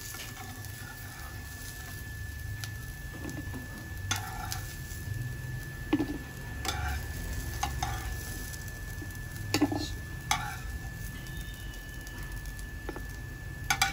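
Maggi-noodle and potato patties sizzling in a little oil in a nonstick frying pan. A steel spatula scrapes and taps against the pan several times, at uneven intervals, as the fried patties are lifted out.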